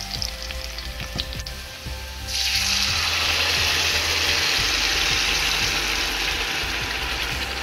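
Onions frying in hot palm oil, with a few clicks of a spatula. About two seconds in, a loud, steady sizzle starts as blended tomato, scotch bonnet, ginger and garlic purée is poured into the hot oil.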